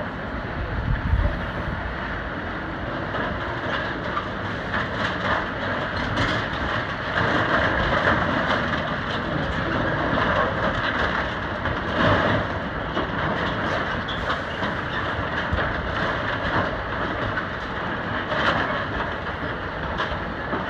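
Continuous heavy mechanical rumbling and clattering with irregular knocks and clanks, louder around the middle.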